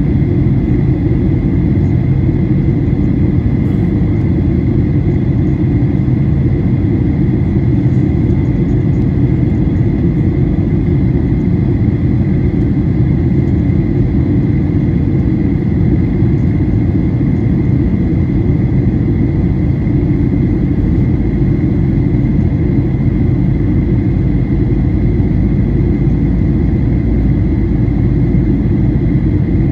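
Steady cabin noise inside a Boeing 737-900ER in flight: a deep, even rumble of the engines and airflow past the fuselage, with a faint steady high tone over it.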